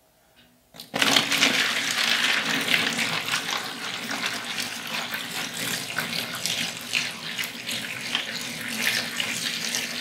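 Hot 3% hydrogen peroxide poured in a steady stream from a stainless steel pot into a plastic storage bin, splashing onto keyboard keys and plastic parts. The pour begins about a second in.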